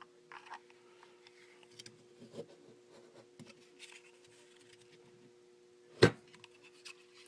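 Light handling taps and rubs of a knife and its Kydex sheath, with one sharp, loud snap about six seconds in. A faint steady hum runs underneath.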